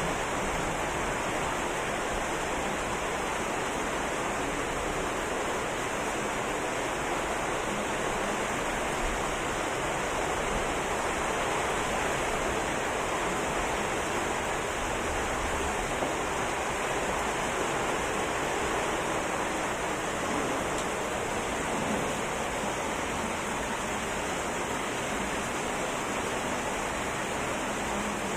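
Rain pouring down steadily, an even rushing hiss of falling water with no breaks.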